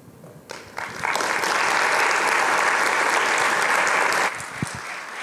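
Audience applauding: the clapping swells in over the first second, holds steady, then falls away suddenly a little after four seconds in and tapers off.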